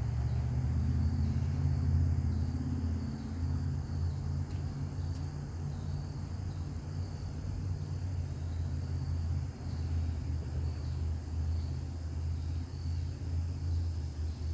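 A steady low rumble, a little louder in the first few seconds, with insects chirping at a regular pace, about once a second.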